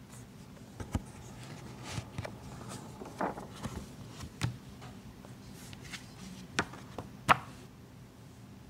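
Handling noise: scattered light knocks, taps and rustles as a paperback picture book is closed and laid down on a wooden table. The sharpest knock comes near the end.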